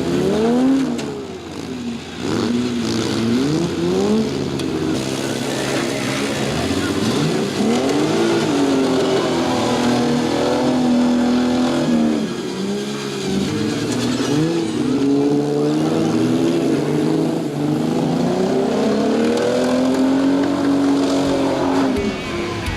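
Demolition derby cars' engines revving, several at once, their pitch climbing and dropping over and over as the cars accelerate and back off.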